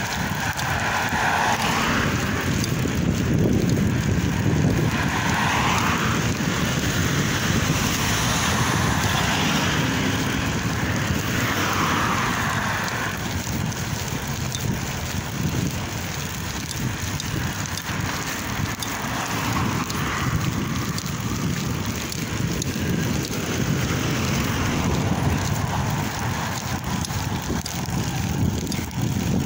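Road traffic passing a moving bicycle, with wind noise on the microphone throughout; three vehicles swell past and fade in the first half.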